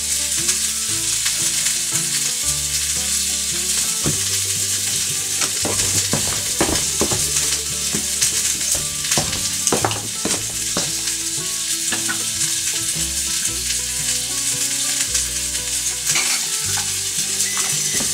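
Steady sizzling with scattered crackles, like food frying in a pan, over faint low tones that shift in pitch every second or so.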